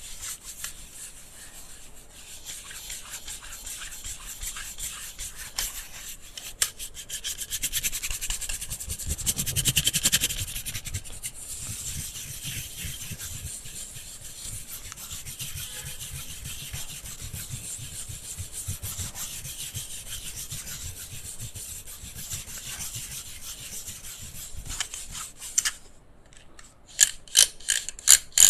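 Continuous scratchy rasping rub on a handheld electric fan, made of very fast fine ticks, swelling loudest about a third of the way in. Near the end it stops briefly and a run of sharp, evenly spaced clicks begins, a few a second.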